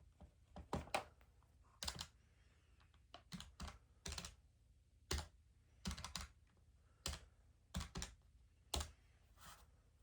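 Keys being pressed one at a time in short, uneven runs: a dozen or so separate clicks, some in quick pairs, with pauses between, over faint room noise.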